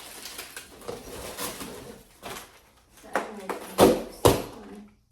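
Bar stool parts being handled during assembly: rustling and scraping with several sharp knocks, the two loudest close together about four seconds in.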